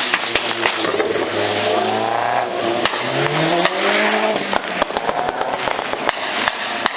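Car engine running and revving, its pitch rising about three seconds in, with many sharp cracks scattered throughout.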